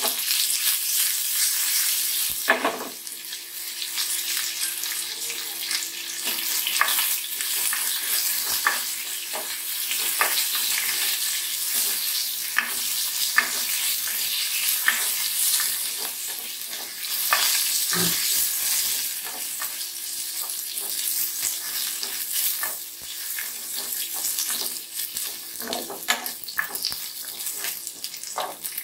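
Tadka sizzling in hot oil in a pan: mustard seeds, chana dal, urad dal and freshly added curry leaves frying with a steady sizzle, broken by scattered sharp pops and clicks.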